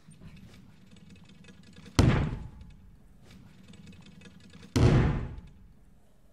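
Two heavy thuds about three seconds apart: a gymnast landing a triple-twisting double layout high-bar dismount on thick landing mats. Each thud dies away over about half a second.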